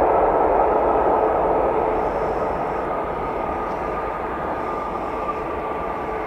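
A jet airliner's turbofan engines, a steady rushing noise with a high whine that drifts slightly lower in pitch as the sound slowly fades.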